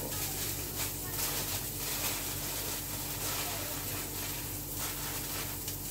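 Irregular soft rustling and crinkling of food wrapping paper handled with gloved hands, over a steady low hum.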